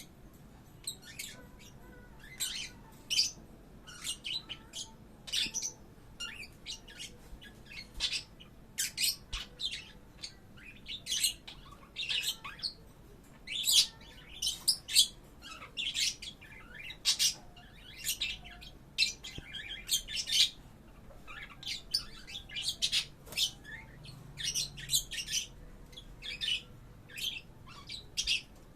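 Small pet parrots, a budgerigar and a lovebird, chirping and squawking in short, high, shrill calls that come in irregular clusters, several to a second.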